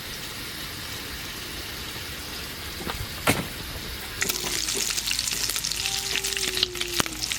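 Food frying in a pan, a steady sizzle. A sharp click comes a little past three seconds in, and from about four seconds in the sizzle turns louder and crackly.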